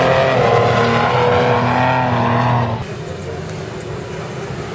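Toyota Land Cruiser engine held at high revs under load, pulling the SUV across a steep sand dune, its pitch stepping slightly. About three seconds in it cuts off abruptly to a quieter, even rushing noise.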